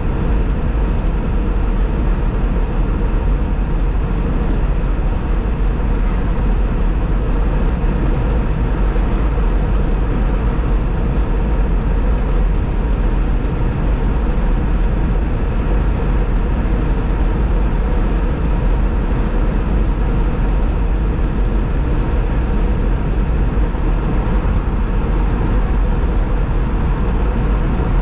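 Steady road noise of a car cruising at highway speed: tyre and engine rumble, heaviest in the deep bass, with a faint steady hum over it.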